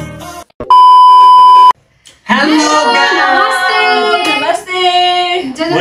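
Music cuts off, then a loud steady electronic beep tone lasts about one second. After a short pause, several voices call out together in a drawn-out, sing-song greeting.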